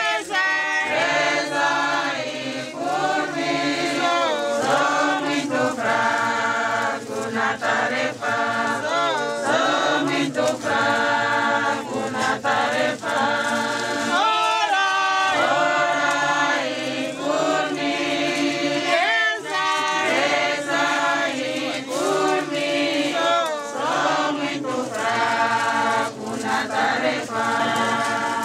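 A group of mourners singing together in many voices, a choir-like funeral song with long held notes and short breaks between phrases.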